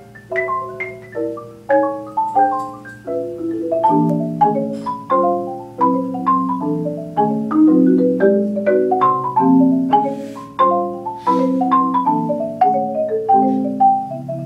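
Two marimbas played as a duet with mallets: a quick stream of single struck notes, each ringing briefly. About four seconds in, lower notes join and the texture gets denser.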